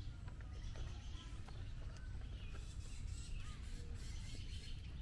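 Quiet outdoor ambience: a few faint bird chirps over a low steady rumble.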